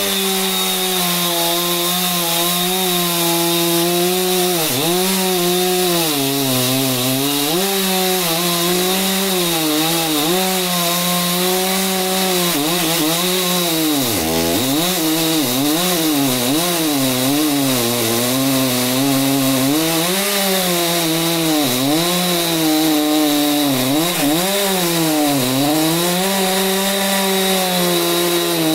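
Stihl MS361 two-stroke chainsaw cutting deep into a large dry stump at full throttle. The engine pitch dips again and again as the long bar bogs under load, then climbs back.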